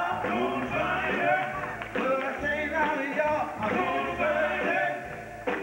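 Live rock-and-roll band playing an upbeat number, with singing over it.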